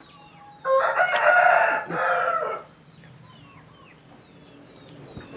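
A rooster crows once, starting about a second in and lasting about two seconds, with faint short high chirps in the background.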